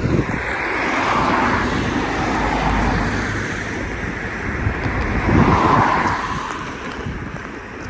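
Road traffic passing close by on a busy road: a vehicle goes by about a second in and another about five and a half seconds in, then the noise fades.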